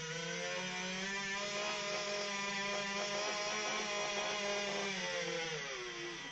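Small electric geared motors of a radio-controlled model excavator running under load with a steady, high whine of several tones as the loaded bucket swings over to the truck. The pitch shifts as the motors start and again near the end, where they stop.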